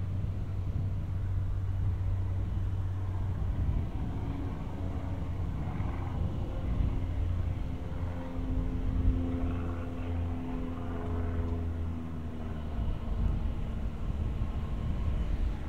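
Street traffic: a steady low rumble, with a vehicle's engine hum that swells and passes in the middle.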